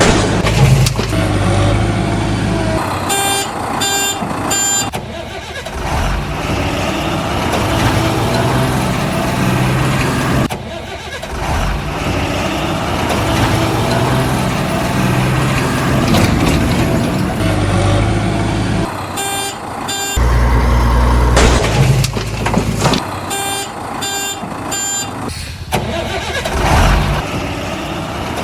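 Heavy truck and digger engine sounds with groups of repeating reversing beeps now and then. The sound changes abruptly several times, like edited-in vehicle sound effects.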